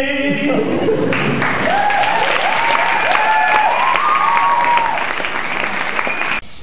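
Audience clapping, with a run of short rising-and-falling tones over it in the middle. The clapping cuts off suddenly near the end.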